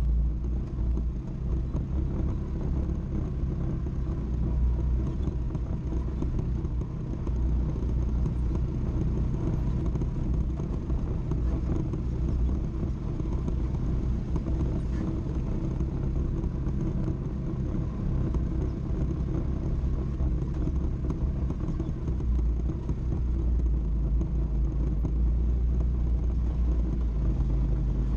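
ATV engine running at low speed, heard from the machine's own rear rack: a steady low drone as it crawls over a rough, rocky trail.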